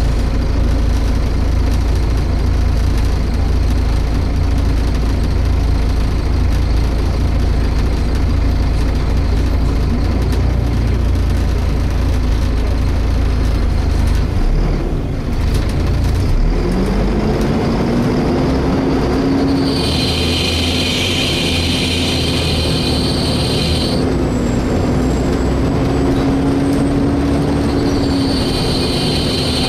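Volvo B7TL bus heard from inside, its engine rumbling low; about sixteen seconds in the cooling fan spins up with a rising whine, then holds steady. A loud high-pitched screeching comes in a few seconds later, stops, and starts again near the end.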